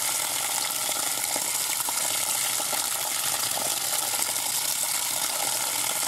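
Thin stream of spring water pouring steadily off a rock ledge and splashing, with a hand held in the falling water rinsing a small stone.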